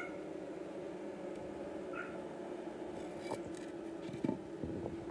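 Honeybees humming steadily in an opened nucleus hive, with a few light knocks from handling the hive's wood and foam about three to four seconds in.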